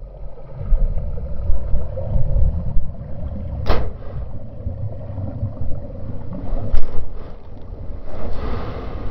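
Muffled rumbling and rubbing from a covered action camera being jostled, with a sharp knock a little over a third of the way in and a fainter one later.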